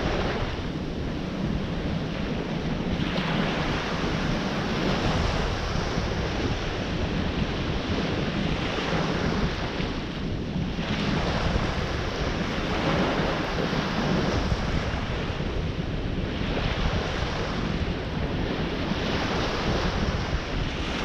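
Ocean surf breaking and washing ashore, swelling and easing every few seconds, with wind rumbling on the microphone.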